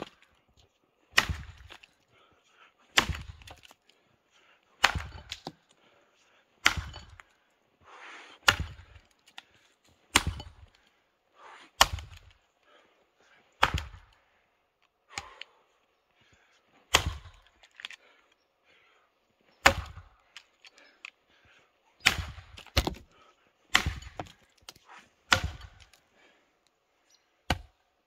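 Tuatahi work axe chopping into an old, semi-dry, partly frozen sugar maple log. Sharp strikes land about every two seconds, some sixteen in all, with two in quick succession a little past two-thirds of the way through.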